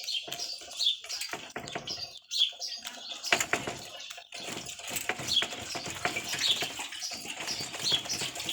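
Light, irregular knocks from a 1999 Honda CG motorcycle's steering head as the front end is worked. The cup-and-ball steering head bearings are worn and loose. Birds chirp repeatedly in the background.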